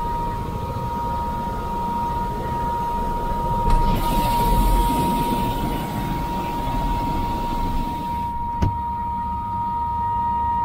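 Helicopter running, with a steady high turbine whine over a low rumble. A stretch of brighter hiss comes in about four seconds in and stops near the end, and there are two sharp clicks, one before the hiss and one just after it.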